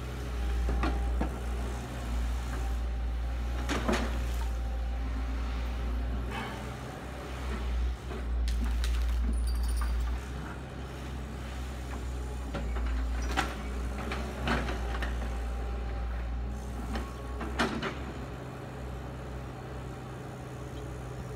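Kobelco crawler excavator's diesel engine running, its low rumble rising and falling as the hydraulics load up while it digs, lifts and swings its bucket, with a few sharp knocks along the way.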